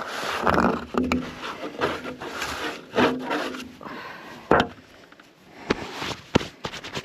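Wood being scraped and knocked, with several sharp knocks spread through it and short pitched sounds at about half a second and three seconds in.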